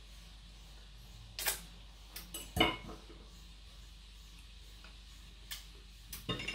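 Mouth sounds of someone licking sweet mascarpone cream off a beater: a scatter of short wet smacks and clicks, the loudest about two and a half seconds in.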